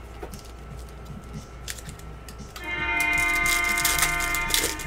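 Foil trading-card pack crinkling and tearing as it is opened, heard as scattered light crackles and clicks. About two and a half seconds in, a louder sustained chord of several held notes comes in and holds.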